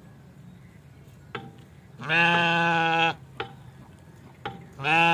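A sheep bleats twice, each call held at a steady pitch. The first lasts about a second, near the middle; the second starts just before the end.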